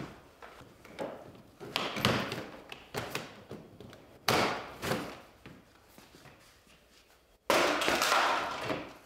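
Plastic body panels of a Ski-Doo Skandic snowmobile being worked loose and pulled off by hand: a series of knocks and clunks about a second apart, then a sudden, louder clatter lasting about a second near the end.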